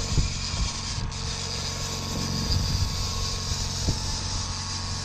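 Fishing reel ratcheting in a fast run of clicks over the steady low hum of the boat's engine. A few sharp knocks of gear sound along the way, the clearest near the start and about four seconds in.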